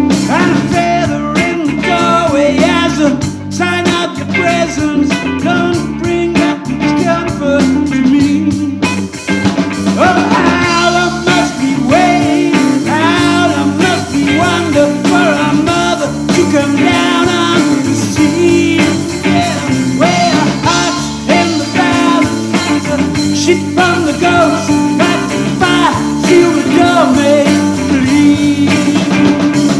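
A live rock trio of electric guitar, electric bass and drum kit playing a song, loud and steady.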